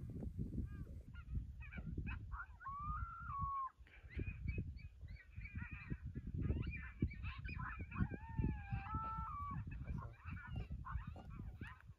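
A chorus of animal calls: many short, overlapping yelping calls, with a longer held, wavering call about three seconds in and two held calls together near the end. Wind rumbles on the microphone underneath.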